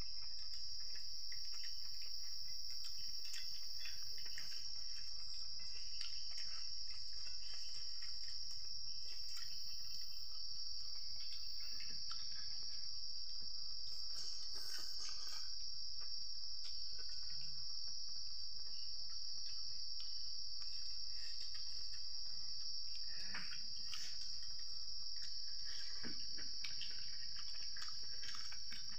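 A steady high-pitched drone of an insect chorus, with faint scattered clicks and smacks of eating by hand from a metal bowl.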